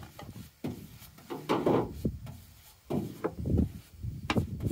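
Flat paintbrush stroking and dabbing paint over an adhesive stencil on a truck's steel door, in irregular rubbing strokes about once a second.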